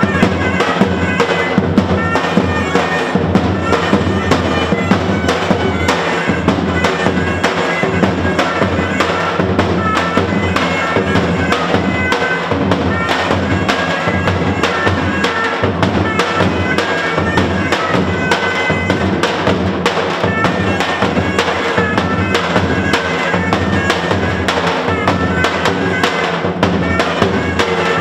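Loud Albanian folk dance music: a fast, steady drum beat under a wind-instrument melody.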